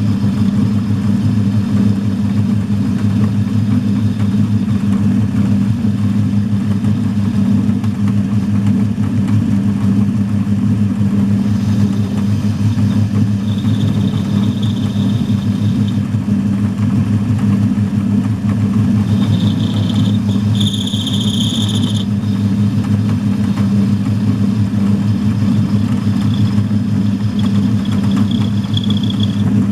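Old metalworking lathe running steadily with a low electric hum while turning a spring cut on a drawbar blank. A faint high-pitched cutting sound comes and goes, and a brief high-pitched whine sounds about two-thirds of the way through.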